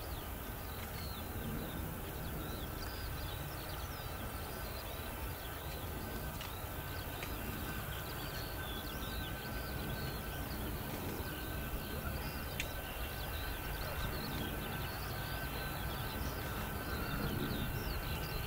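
Boeing C-17 Globemaster III's four turbofan engines running at taxi power: a low rumble with a steady whine that swells a little near the end. Birds chirp over it throughout.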